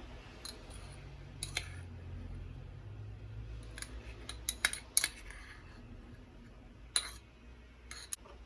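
Kitchen utensils and dishes being handled: a scattered run of sharp clicks and clinks, loudest about halfway through and again about seven seconds in, over a faint low hum.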